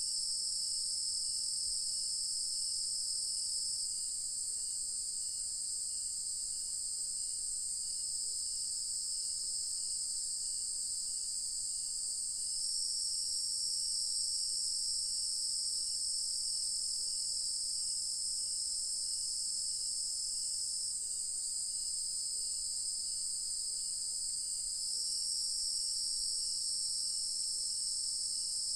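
Dusk chorus of night insects such as crickets, a continuous high-pitched shrill that swells slightly a few times. Under it is a fainter, evenly repeating chirp, a little under two a second.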